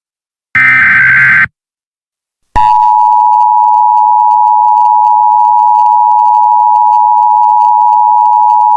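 Emergency Alert System alert signal. A one-second burst of the warbling SAME header data ends about a second and a half in. After about a second of silence, the loud steady attention tone starts and holds unbroken.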